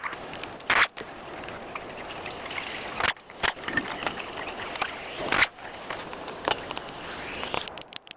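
Workshop tool noise: scattered sharp clicks and knocks over a steady hiss, with a quick run of clicks near the end.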